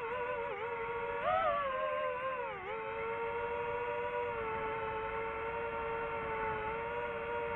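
DJI FPV drone's motors and propellers whining: a steady pitched hum that rises briefly about a second in, dips near three seconds as the throttle changes, then holds steady.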